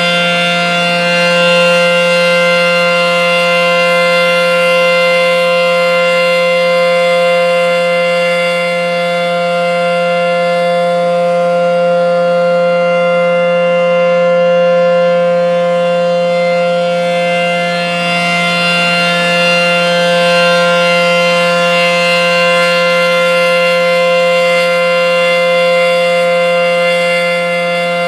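ACA P-10 electromechanical siren sounding a loud, steady tone at full speed: its pitch holds level as a chord of several tones, while its loudness swells and eases slightly every several seconds.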